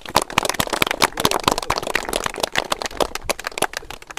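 People clapping: a dense, irregular run of hand claps.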